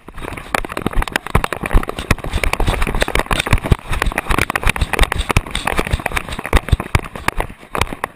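A GoPro camera strapped to a running dog jolts with every stride, giving a rapid, irregular stream of knocks and rattles over a rushing noise.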